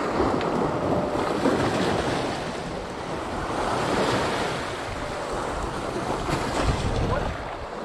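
Sea waves washing onto the shore, with wind buffeting the microphone.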